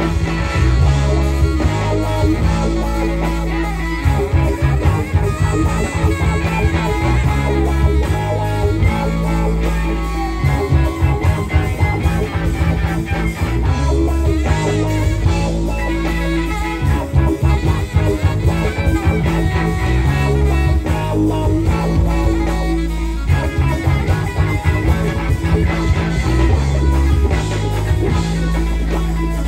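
Live rock band playing an instrumental stretch: guitar out front over a bass line that steps between notes, with drums.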